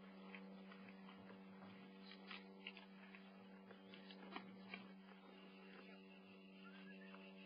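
Near silence: a faint steady hum with a few scattered faint clicks and knocks about two to five seconds in.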